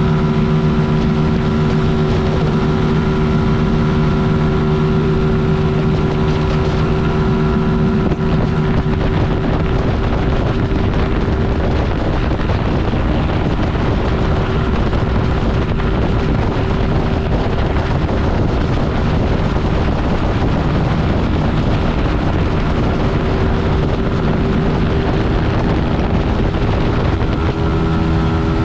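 Single-cylinder 125cc motorcycle engine running at steady revs while riding, with heavy wind noise on the microphone. From about eight seconds in until near the end, the wind rush largely covers the engine's note.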